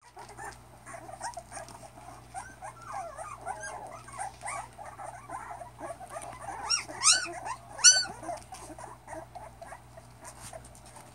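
A litter of young pit bull puppies squeaking and whimpering, many short high calls overlapping one another, with two louder yelps about seven and eight seconds in.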